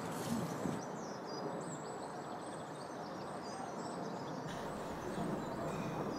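Woodland ambience: a steady outdoor background noise with small birds chirping faintly.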